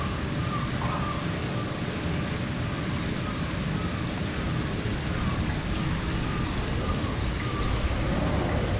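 Steady rushing noise, like running or splashing water, with faint short high squeaks repeating every second or so.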